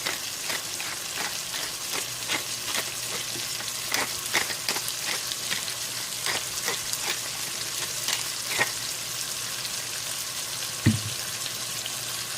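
Pork bacon fat with garlic, tomatoes, ginger and bell peppers sizzling steadily in a pan, with frequent small clicks from a utensil stirring against it. A single low thump comes near the end.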